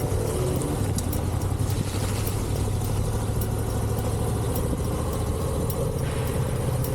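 Adventure motorcycle engine running steadily at low revs.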